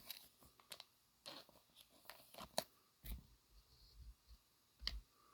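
Faint clicks and light rustles of trading cards being handled and slid one past another, about a dozen scattered small snaps.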